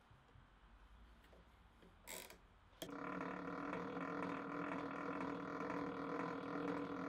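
Homemade rose engine (guilloche machine) starting with a sharp click about three seconds in, then its motor and gear drive running steadily with a hum of several steady tones. Before that only low workshop noise and a brief scrape.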